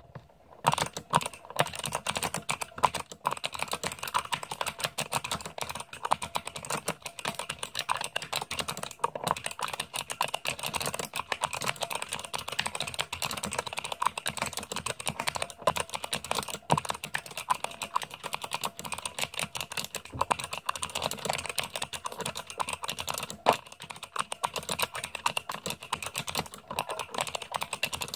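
Fast, continuous typing on a Hansung MKL16S mechanical keyboard with Kailh Speed Pink clicky switches and ABS keycaps, a dense run of sharp key clicks.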